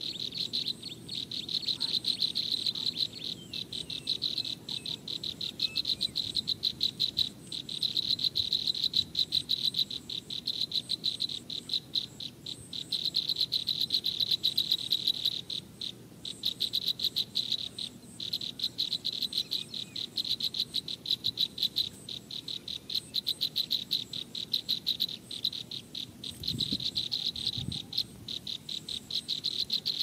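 Insects chirping: a high, rapidly pulsing trill in runs of a second or two with short breaks, repeating steadily.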